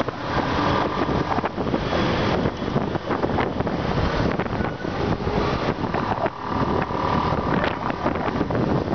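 Wind rushing over the microphone of a moving motorcycle, with its engine and the surrounding road traffic underneath.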